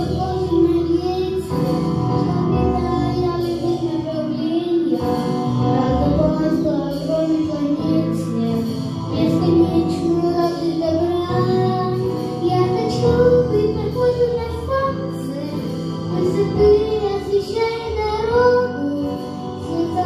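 A young boy singing a song into a handheld microphone over a recorded instrumental backing track.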